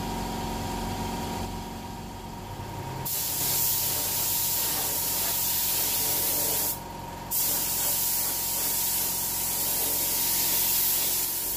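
Air spray gun hissing as it sprays clear coat, in two long trigger pulls: the first starts about three seconds in, it breaks off briefly around seven seconds, and the second runs until just before the end.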